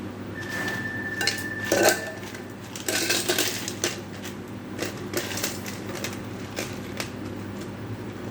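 Glassware and utensils clinking and tapping in a run of sharp knocks, with one ringing note lasting about two seconds near the start and a denser cluster of clatter about three seconds in.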